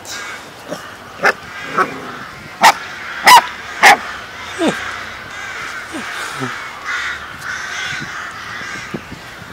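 A series of short, sharp animal calls, the loudest three coming about half a second apart in the first half, followed by fainter calls and a few short falling squeals.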